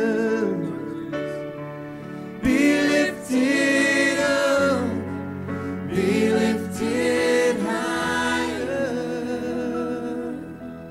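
Gospel worship music: a solo voice singing long held notes with vibrato over sustained keyboard chords.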